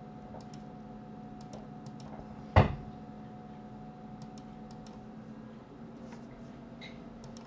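Faint computer mouse clicks, mostly in quick pairs, over a steady low electrical hum. A single loud thump about two and a half seconds in.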